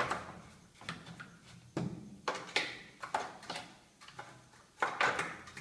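Sharp plastic knocks and clatter from a Sanyo top-loading washing machine's top cover and control box being handled: a few hits around two seconds in and another cluster near the end.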